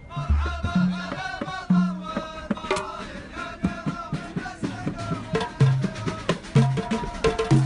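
Music: singing voices over drums, with a quick, regular drumbeat taking over about halfway through.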